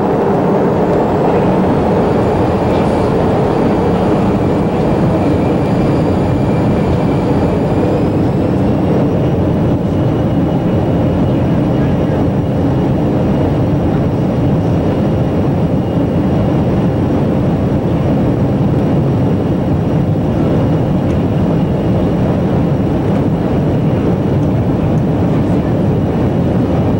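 Steady cabin noise of an airliner's engines running on the ground before takeoff: a loud, even rumble with a thin high whine that steps up in pitch about eight seconds in.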